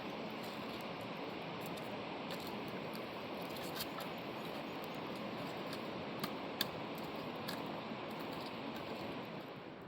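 Steady rushing of a mountain river, with a few sharp clicks and taps over it, the loudest a little past the middle.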